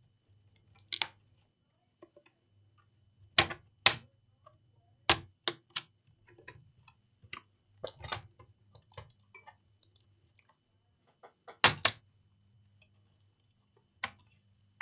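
Plastic clips of a laptop's back cover snapping loose as the cover is pried off: a series of about ten sharp, irregularly spaced clicks with lighter ticks between them.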